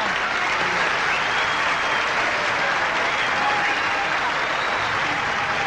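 Studio audience applauding steadily, a dense, even clapping that continues through the whole stretch, with faint voices underneath.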